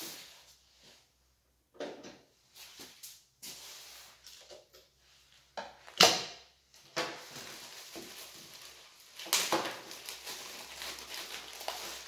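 Unboxing handling noises: plastic packaging crinkling and rustling, loudest in a stretch near the end, with scattered light knocks and taps and one sharp click about six seconds in as a part is pulled off the compressor head.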